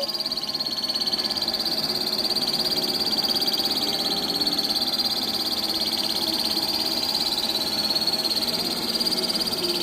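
ABIR X5 robot vacuum running with a steady, high-pitched buzz that carries a fast fluttering rattle: the abnormal noise the machine is known for and is being fixed for.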